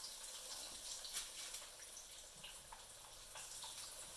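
Chicken cutlets sizzling as they pan-fry in hot oil in a skillet: a steady hiss with scattered small crackles.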